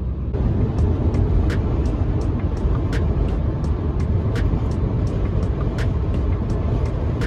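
Road and engine noise inside a moving car: a steady, dense rumble with scattered light clicks.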